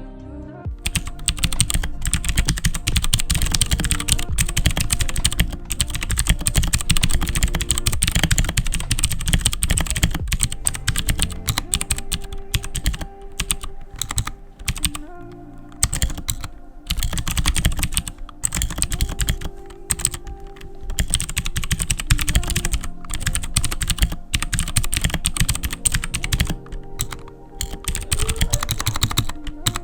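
Fast, continuous typing on a Royal Kludge RK61 60% mechanical keyboard with brown tactile switches: a dense clatter of key presses with a few brief pauses. Music plays quietly underneath.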